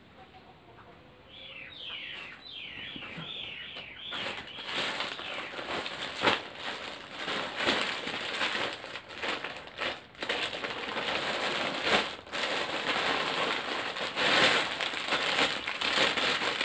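Plastic packaging crinkling and rustling as a courier bag and a clear plastic bag of clothing are handled and opened, much louder from about four seconds in. About two seconds in there is a short run of high, falling chirps.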